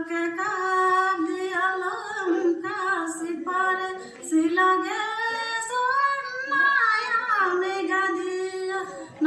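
A high solo voice singing a slow melody, holding long notes and sliding between them.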